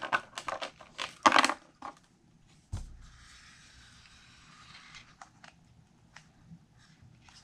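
Hands handling a Lego model: a run of sharp plastic clicks and crackles in the first second and a half, a dull thump near three seconds, then a faint soft hiss for about two seconds while the model is turned on a wooden turntable, with a few light clicks after.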